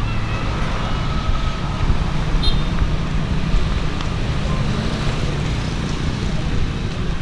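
Steady street traffic noise, vehicle engines running low with no distinct revving.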